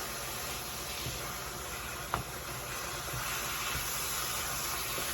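Ground beef and vegetables frying in a hot pan, a steady sizzle with a single sharp pop about two seconds in.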